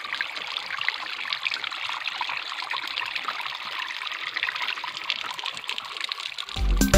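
A small rivulet of water trickling down a narrow channel of moss and stones. Music cuts back in near the end.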